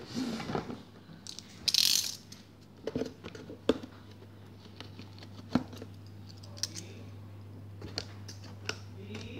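Cardboard shipping case being handled and slid on a tiled floor. A brief scrape about two seconds in, then a few scattered light clicks and taps over a steady low hum.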